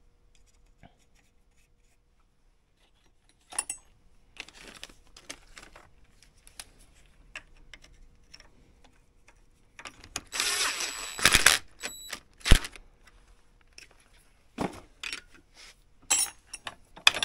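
Hand tools and small metal parts clinking and knocking on a workbench, in scattered short clicks, with about a second and a half of rushing noise about ten seconds in and two sharp knocks just after it.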